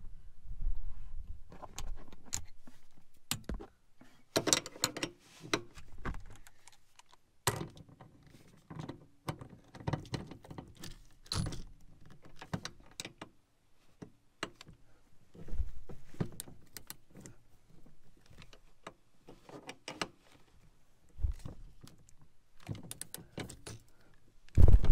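Irregular metallic clinks, knocks and rattles of tools being handled against the seat brackets and bolts, as the rear-seat mounting screws are worked on. Near the end a cordless drill starts up loud.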